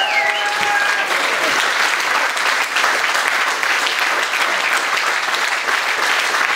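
Crowd applauding: steady, dense clapping.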